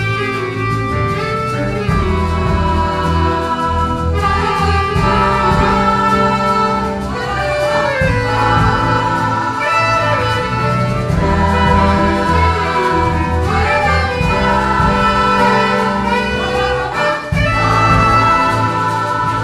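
Folk orchestra and women's choir performing a traditional song. The choir sings over a band of saxophones, clarinets, flutes, violins, accordions, electric bass and drums, with a steady pulsing bass line underneath.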